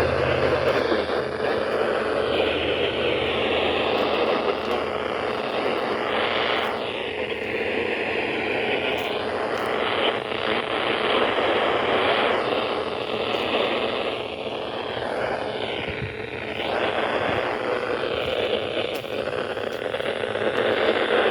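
Steady hiss of static from a NOAA weather radio receiver on a weak signal, wavering with a few shallow dips in level.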